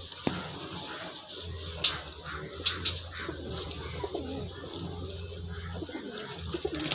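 A flock of Madrasi domestic pigeons cooing, over a low steady hum, with a few sharp clicks about two and three seconds in.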